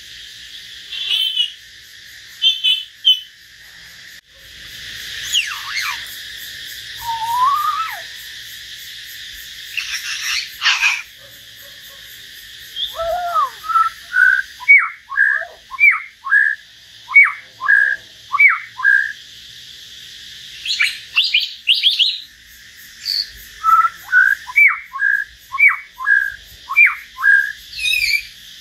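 Caged common hill myna and white-rumped shama singing: assorted clear whistles and sliding calls, then two long runs of short, repeated down-slurred whistled notes.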